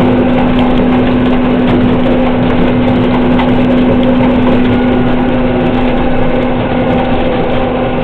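New Holland HW320 swather's diesel engine running steadily at full throttle with the cutting equipment engaged, heard from inside the cab as the machine starts to creep forward. It is a loud, even hum with a strong steady tone.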